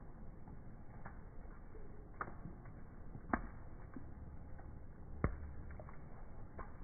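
Rain dripping: scattered, irregular drop taps over a steady faint rain hiss, with three louder drops about two, three and a half and five seconds in.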